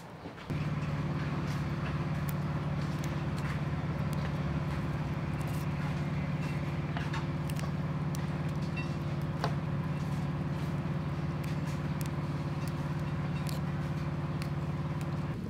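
A motor running steadily with a low, even hum, starting abruptly about half a second in. Faint scattered clicks of herb stems being snapped and leaves stripped sit on top.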